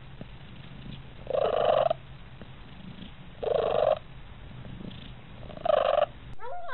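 Domestic cat purring steadily, with three short, loud throaty calls about two seconds apart over the purr.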